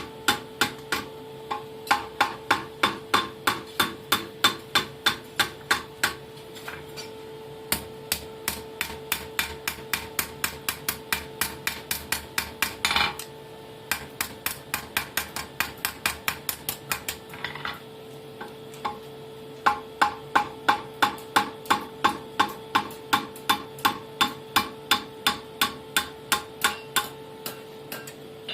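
Hand hammer striking a hot steel bar on an anvil in steady runs of about three blows a second, with a few short pauses between runs, as a fire-steel striker is forged. A steady hum runs underneath.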